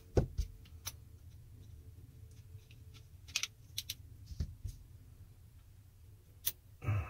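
Sharp, irregular clicks and taps of small metal tools and parts against the body of an Okuma Inspira ISX spinning reel as it is taken apart, the loudest click about a quarter second in and a small cluster of clicks around the middle.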